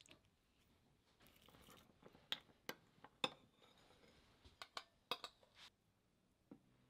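A metal spoon mixing tartar sauce of mayonnaise and chopped onion in a glass bowl. A soft stirring noise comes first, then a run of sharp clinks as the spoon strikes the glass, with a lighter knock near the end.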